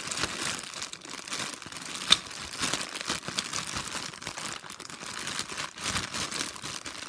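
Plastic bag crinkling continuously as a Rubik's cube is turned by hand inside it, with one sharp click about two seconds in.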